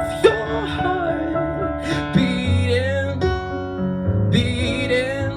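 Live acoustic pop performance: guitar and keyboard playing the song's quiet closing bars, with a held sung note.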